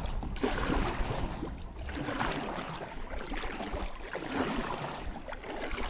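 Kayak paddle strokes: the blade dips and pulls through calm water in a repeated splashing swish about every second or so, over a low wind rumble on the microphone.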